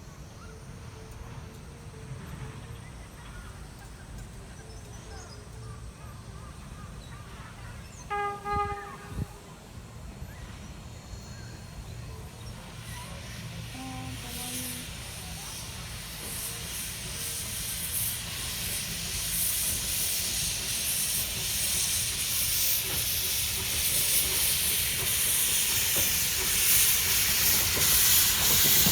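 Steam locomotive during shunting: a low rumble with a short pitched toot about eight seconds in, then a hiss of steam that grows steadily louder through the second half.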